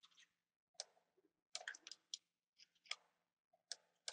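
Computer mouse clicking: a scattered series of short, faint clicks, some coming in quick runs of two or three.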